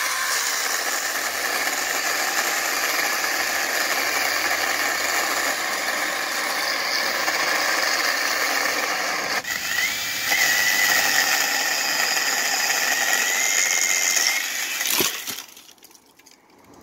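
Sainlogic 6-inch cordless mini chainsaw with a brushless motor, running under load as its chain cuts through a branch about 6 inches thick: a steady high whine. It eases off briefly about nine seconds in, picks up again, and stops about fifteen seconds in.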